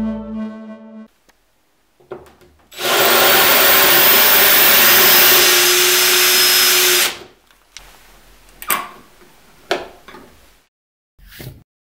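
Cordless drill turning a Marcrist PG750X dry diamond tile bit, grinding a hole into a glazed wall tile through a steel guide: a loud, steady grinding noise with a steady motor whine under it, lasting about four seconds before it stops. A few light knocks follow.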